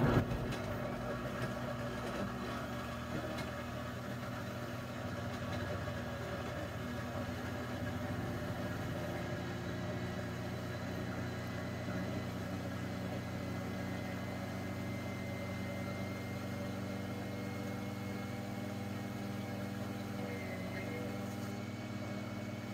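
Vevor Professional 68oz blender's motor running steadily at its low speed 2 setting, muffled by the blender's sound enclosure, as it purées fresh strawberries into juice.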